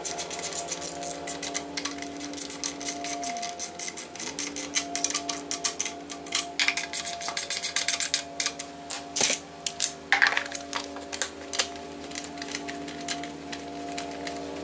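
Irregular clicks and knocks of a plastic air cleaner housing and its hardware being handled and fitted onto a small engine, busiest in the second half, over a steady background hum.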